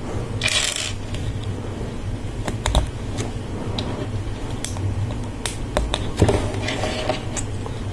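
Plastic Lego Technic pieces being handled and pressed together: scattered sharp clicks and a couple of brief rustles, over a steady low hum.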